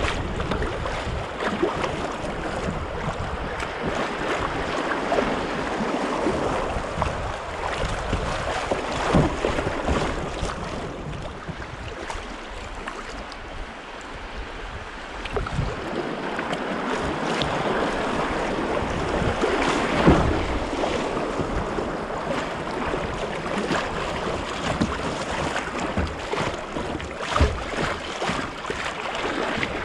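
Shallow river riffles rushing and splashing around a kayak's hull, heard close to the water, with scattered sharper splashes and wind rumbling on the microphone.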